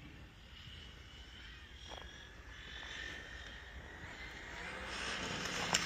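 Faint whine of a 1/7-scale RC car's TP4060 brushless electric motor, its pitch gliding up and down with the throttle, growing louder towards the end.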